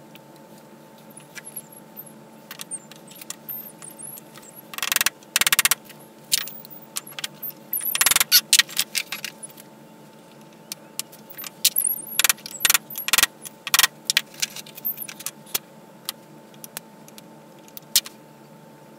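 Steel universal-joint parts clinking and clicking against each other and the bench vise as the joint is put back together, with quick runs of metallic jingling about a quarter of the way in and near the middle, and more clicks a little later.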